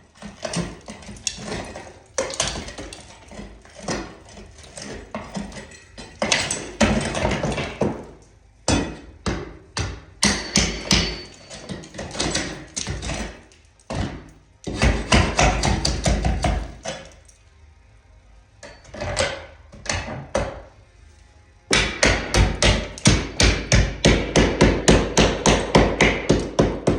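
Hammer striking a large chisel to chip plaster off wooden lath, in irregular bursts of blows with short pauses. Near the end comes a fast steady run of about five blows a second.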